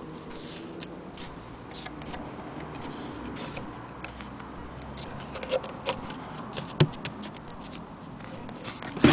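Handling noise: scattered light clicks and ticks as a hand and camera move over a wooden gramophone cabinet. A few sharper clicks come in the middle, and a louder knock comes near the end.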